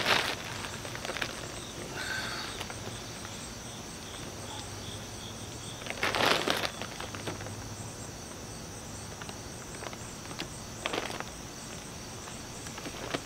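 Short rustling bursts from a water-filled Cuben fiber pack liner being twisted shut and handled, the loudest about six seconds in, over a steady background of insects chirring.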